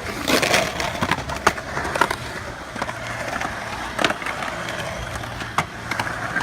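Skateboard wheels rolling on pavement, with a few sharp clacks of the board striking the ground.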